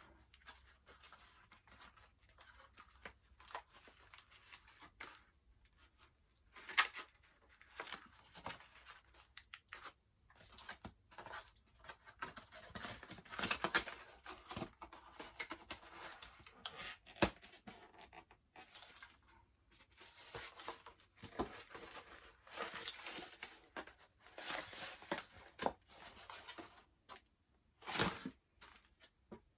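Doll packaging being handled and opened: irregular bursts of rustling, crinkling and tearing of plastic and cardboard, some sharper and louder than others.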